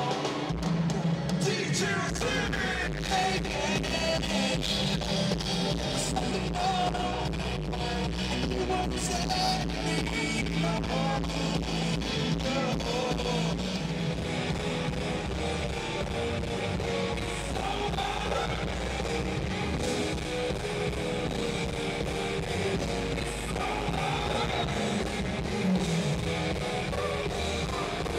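Live band music: electric guitar, drums and keyboards playing a steady groove, with a singer over it.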